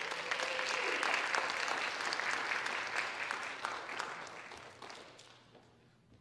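Audience applauding: the clapping swells quickly, holds for a few seconds, then dies away about five seconds in.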